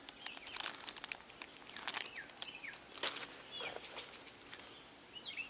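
Soft clicks and rustling of plastic tackle packaging being handled, with a few short, high, falling bird chirps in the background.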